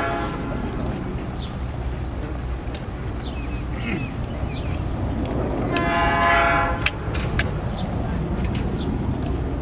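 Metra EMD F40PH diesel locomotive approaching with its engine rumbling steadily, sounding its air horn in one blast of about a second near the middle, with the tail of an earlier blast right at the start.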